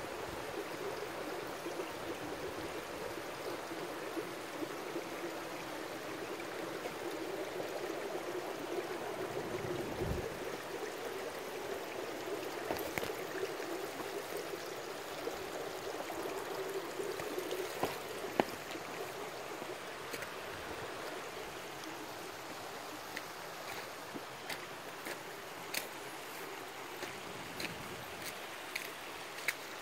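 Stream running steadily over rocks, with scattered sharp ticks of water in the second half.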